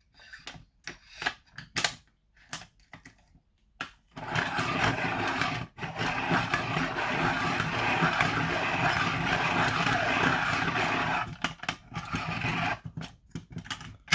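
Hand-crank desk pencil sharpener resharpening a Bruynzeel colour pencil whose lead had broken: a few handling clicks, then about seven seconds of steady grinding as the crank is turned and the blades shave the pencil, broken once by a short pause. A few more clicks follow as the pencil is released.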